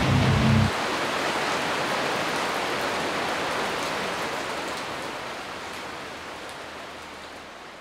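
Steady rain falling, a fine even hiss with scattered drop ticks that fades out gradually; the tail of background music with a heavy bass cuts off under a second in.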